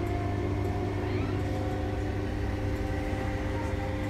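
Passenger train running, heard from inside the carriage: a steady low rumble with a constant hum of several steady tones over it.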